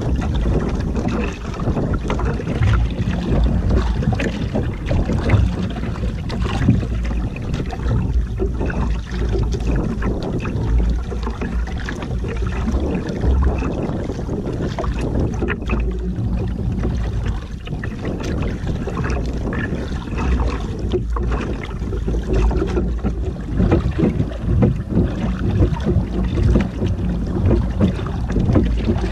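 Wind buffeting the microphone over sea water sloshing and splashing against the hull of a small outrigger canoe, a steady rushing noise heaviest in the lows.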